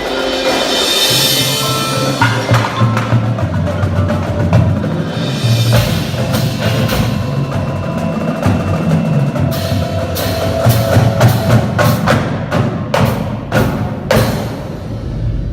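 Indoor percussion ensemble playing: sustained low bass notes and held mallet tones under sharp accented hits, which come in a quick string over the last few seconds.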